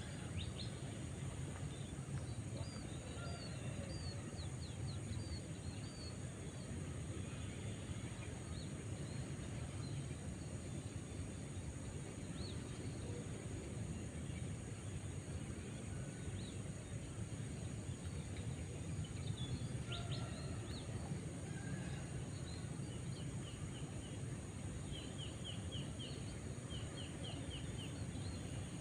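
Outdoor ambience: a steady low rumble with birds chirping now and then, short quick runs of chirps coming near the end.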